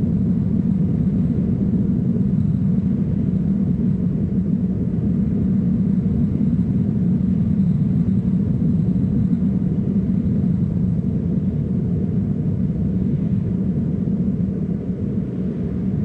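A steady low rumble that holds without change, with no distinct sounds standing out.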